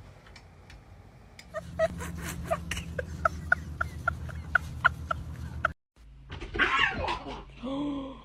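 A cat meowing twice near the end, in wavering pitched calls. Before that comes a run of short, sharp chirping clicks, about three a second, over a low hum.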